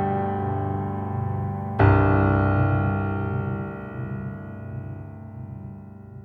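Background music: soft electric-piano-style keyboard chords, with a new chord struck about two seconds in and left to ring, slowly fading away.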